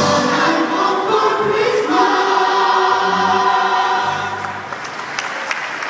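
Gospel choir singing, ending on a long held chord that stops about four seconds in; scattered claps from the crowd follow near the end.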